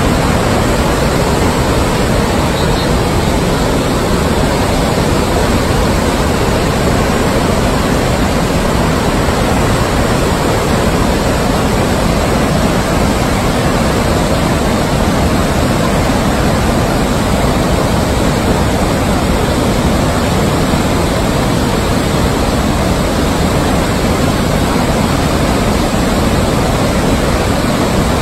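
Victoria Falls in heavy flow, a wide curtain of water plunging into its gorge: a loud, steady rush of falling water, unbroken throughout.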